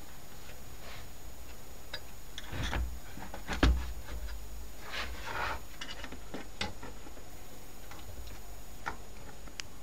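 Scattered clicks, scrapes and light knocks of plastic and metal from an Opel Corsa C car radio head unit being handled and worked at with a thin metal tool, with one louder knock about three and a half seconds in.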